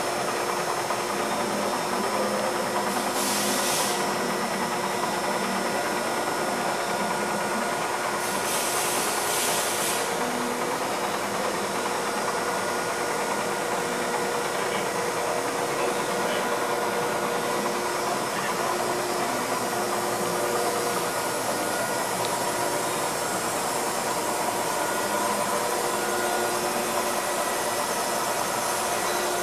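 A Giddings & Lewis 65-C5-F floor-type CNC horizontal boring mill running under power: a steady mechanical hum with several constant whining tones. Two short hisses come about 3 and 9 seconds in.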